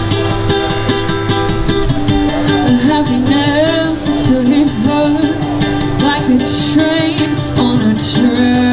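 Live rock band playing: guitars, drums and keyboard, with a voice singing the melody from about two seconds in.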